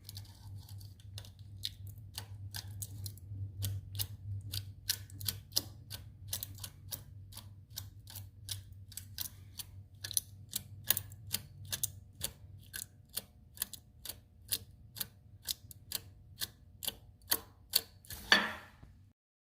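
VW 1835cc air-cooled flat-four engine running with a loud, regular knock, about two sharp knocks a second over a low hum: a rod knock after the engine ran out of oil. Near the end a louder rattle, then the sound cuts off suddenly.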